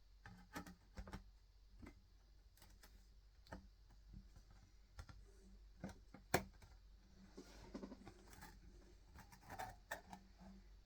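Scattered light clicks and taps of a MacBook Air's aluminium bottom cover being handled and fitted back onto the laptop, with one sharper click about six seconds in.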